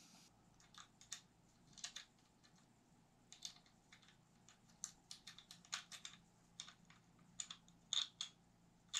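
Light, irregular clicks and taps of a Stoeger STR-9F polymer-framed 9mm pistol being handled and turned over, several a second.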